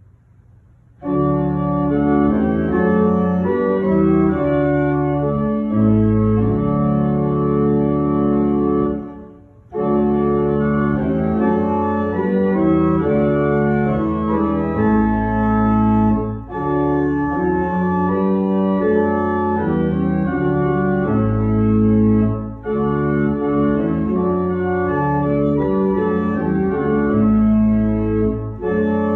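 Church organ playing full sustained chords over a low pedal bass. It comes in about a second in and moves in phrases, with short breaks between them roughly every six seconds.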